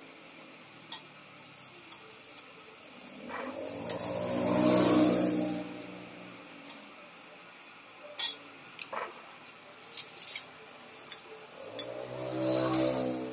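Light clinks and taps of metal and glass as phin coffee filters, lids and glasses are set down and handled on a counter, about eight in all. Behind them a louder droning sound swells and fades twice, the first time loudest about four to five seconds in.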